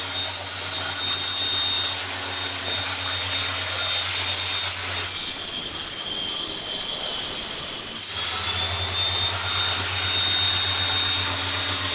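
A panel saw running: its motor and spinning circular blade give a steady high whine over a low hum.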